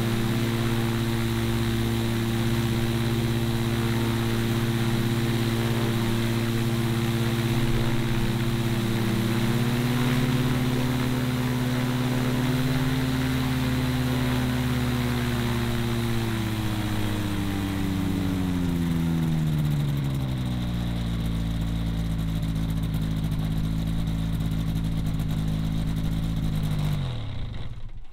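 Rotax 582 two-stroke twin on a newly built gyroplane running on its first start and turning the propeller. The engine speed rises slightly about ten seconds in, then drops to a lower steady speed, and the engine cuts off near the end.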